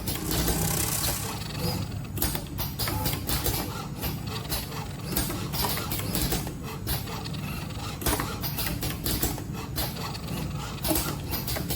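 Automated robotic feeding cell for dental burs running: dense, irregular rattling clicks of small parts and mechanisms over a steady low machine hum.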